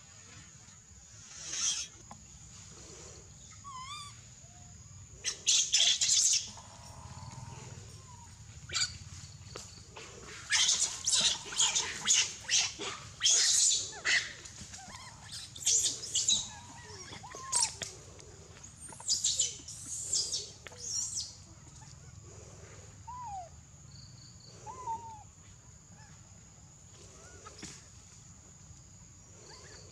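Repeated bursts of leaves and branches rustling as a macaque moves through foliage and climbs a tree trunk, densest in the middle. A few short falling calls sound in between, over a steady high insect drone.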